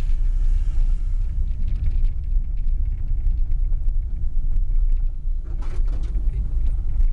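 Car driving on a bumpy unpaved dirt road, heard from inside the cabin: a steady low rumble of engine and tyres with scattered rattles and knocks from the rough surface. A brighter hiss in the first second or so comes while passing a dump truck.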